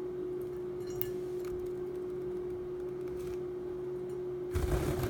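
A budgerigar bathing in a shallow metal pie plate of water: a steady hum with a faint tick about a second in, then a short burst of splashing near the end.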